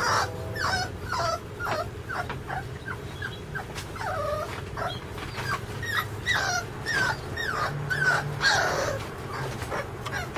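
Puppy whimpering and whining over and over: a string of short, high-pitched cries, many sliding down in pitch.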